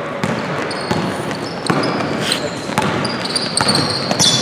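Basketball game on a hardwood court: the ball is dribbled and players run, their footfalls knocking on the floor, while sneakers give short high squeaks, the loudest near the end.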